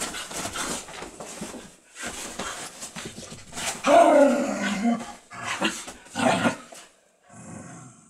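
Dogs play-fighting on a bed: scuffling and rustling on the duvet with play growls, and a louder, longer growl that falls in pitch about four seconds in.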